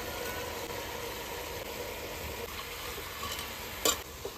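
Pork and onions cooking in an aluminium pot on the stove, giving a steady low sizzle with a faint hum. There is one sharp knock near the end.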